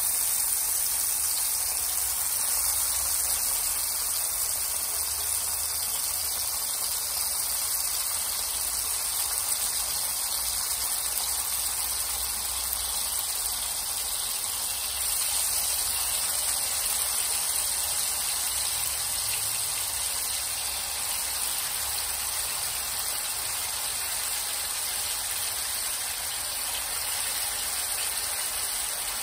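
Patin fish fillets sizzling steadily as they shallow-fry in hot oil in a cast iron pan, a little louder from about halfway through.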